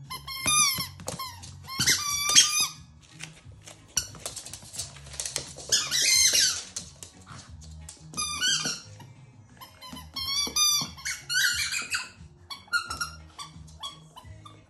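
A dog's rubber squeaky ball squeaking as a Lhasa Apso chomps on it. The squeaks come in repeated bursts of short, high squeaks, with a longer run of rapid squeaks about halfway through.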